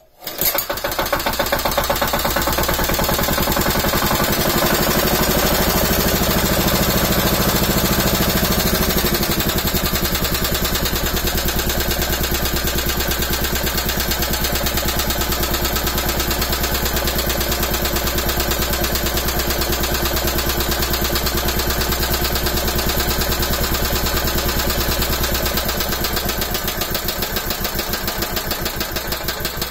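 Honda GX160 single-cylinder four-stroke engine, converted to run on HHO gas, starting at once on the recoil pull and running. Its speed sits higher for several seconds, then drops to a lower steady idle about nine seconds in.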